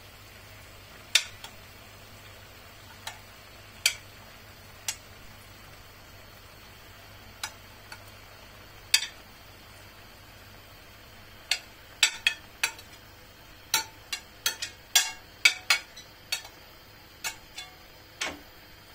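Irregular sharp clicks and taps, about two dozen of them, sparse at first and coming thick and fast in the second half, over a faint steady hiss.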